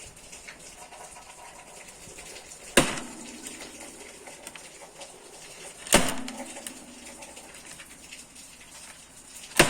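Pet rabbit thumping its hind foot on the floor three times, about three seconds apart, each a sharp knock with a short ringing tail. Such thumping is most often a sign of the rabbit's displeasure.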